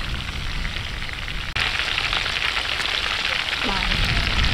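Pork ribs deep-frying in a wok of hot oil: a steady sizzling that gets suddenly louder about a second and a half in.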